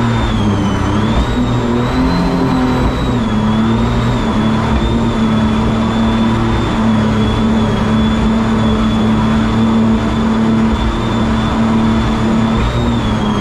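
Supercharged mini jet boat engine running steadily at speed, with a high whine over the engine note. The pitch dips and recovers a couple of times in the first few seconds, under the rushing noise of the hull and spray on the water.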